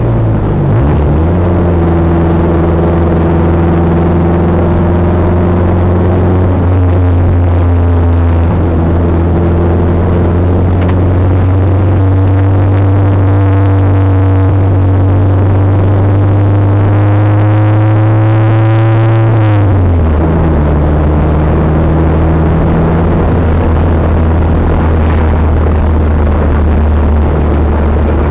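Toyota Celica GT-Four ST165's turbocharged four-cylinder engine running at steady, moderate revs, heard from inside the rally car's cabin while it is driven gently. The engine note climbs slowly for several seconds, drops sharply about twenty seconds in, then runs steady again.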